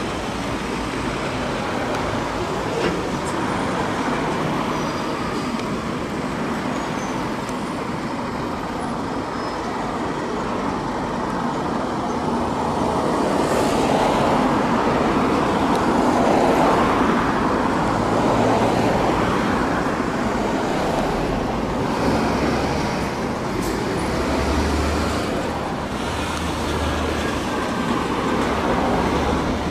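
Road traffic: cars and vans driving past on a street, one car passing close and loudest about halfway through, with the low engine hum of a lorry near the end.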